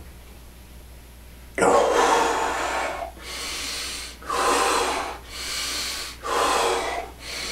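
A man's forceful breathing: a sudden loud intake of breath about a second and a half in, ending a held breath, then deep breaths in and out through the mouth and nose, a louder one about every two seconds with softer ones between.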